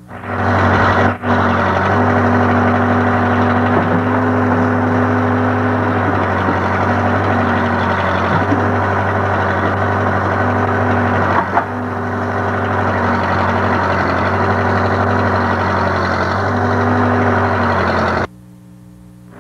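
Backhoe loader's engine running steadily as the machine digs a trench; the sound cuts off sharply near the end.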